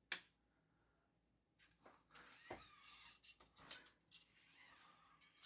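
Faint handling noises of a steel gear inner cable being fed into a bicycle frame's cable guides: one sharp click at the start, then scattered light clicks and soft rubbing.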